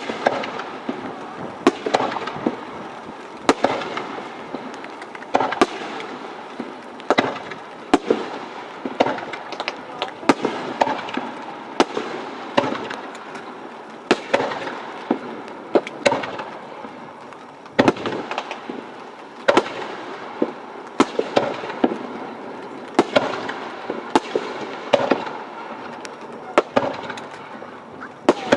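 Aerial fireworks shells bursting one after another, sharp bangs coming irregularly about every second over a continuous background of crackle and echo.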